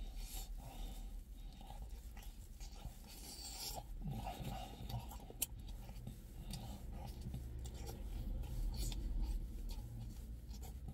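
Close chewing and mouth sounds of a person eating a slice of pizza, a run of small clicks and rustles with one sharper click about halfway through, over a steady low rumble.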